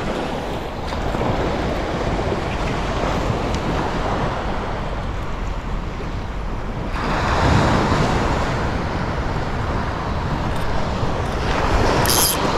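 Sea waves washing onto the shore with wind buffeting the microphone, a wave surging louder about seven seconds in.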